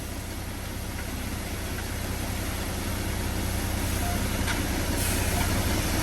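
Concrete mixer truck's diesel engine running, growing steadily louder.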